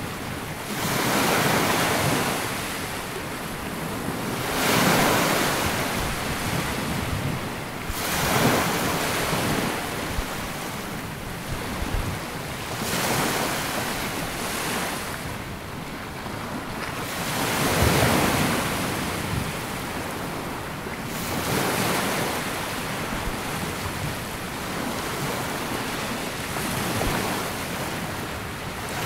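Small waves breaking and washing up on a sandy beach, each swell rising and falling every few seconds, with some wind on the microphone.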